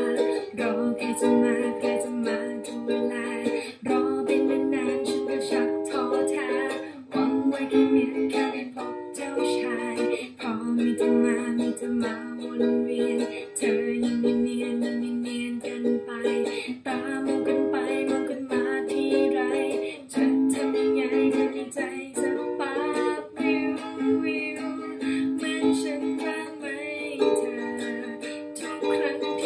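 Ukulele strumming a song's chord progression, changing chords about every one to two seconds.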